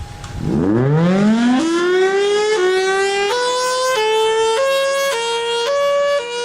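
Federal Signal Thunderbolt 1003 siren sounding its fire signal: about half a second in it winds up from a low rumble in a rising glide, then from about two and a half seconds switches back and forth between two pitches roughly every half second.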